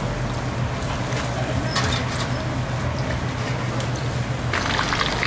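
Battered fritters deep-frying in a wok of hot oil: a fine sizzle over a steady low hum. About four and a half seconds in, the crackling of the oil suddenly becomes louder and denser.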